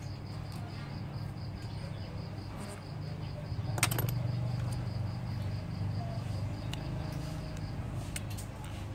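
Small metal repair tools clicking and tapping against a smartphone's frame during disassembly, with a louder clatter about four seconds in. Under it run a steady low electrical hum and a faint high-pitched tone that pulses several times a second.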